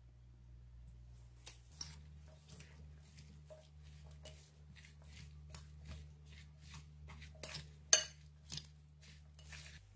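A metal spoon clinking and scraping against a glass bowl in short irregular strokes, tossing a chopped salad. The sharpest clink comes about eight seconds in.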